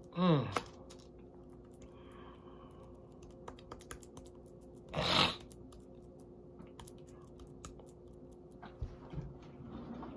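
A man sneezes once, loudly, about five seconds in. Around it, light clicks and scrapes of a metal spoon shaping raw ground turkey on parchment paper, over a steady low hum; a short falling vocal sound comes just after the start.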